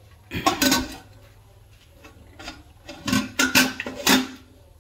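Freshwater snails being stirred in a basin of water: splashing and shells clacking together in four or five short bursts.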